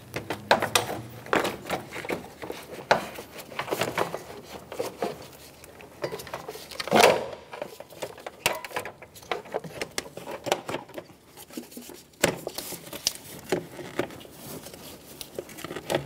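Hard plastic knocking, clicking and scraping as a new plastic cooling fan assembly is worked down into place behind the radiator, its shroud bumping against the radiator and nearby parts. The knocks come irregularly, with a louder one near the middle.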